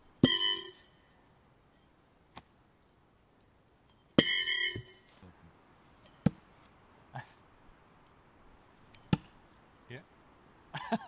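Thrown steel knives striking a wooden log target, twice: each hit is a sharp impact followed by a metallic ringing of several clear pitches that dies away within about a second. Fainter sharp knocks follow later.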